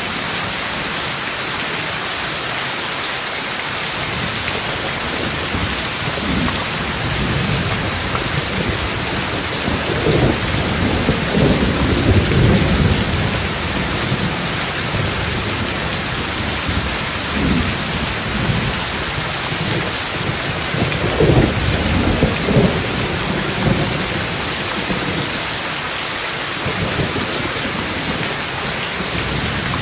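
Steady heavy rain with thunder rumbling twice, a long roll about a third of the way in and another near two-thirds through.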